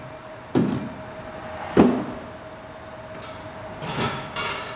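Metal clunks from steel parts being handled on a steel workbench fixture: three knocks in the first two seconds, the third loudest. Then a ringing, jingling rattle of a steel rod tool near the end, over a steady faint hum.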